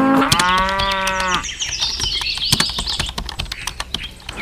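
A cow moos once, a long pitched call lasting about a second and a half. After it come a run of sharp clicks and taps and some high chirping.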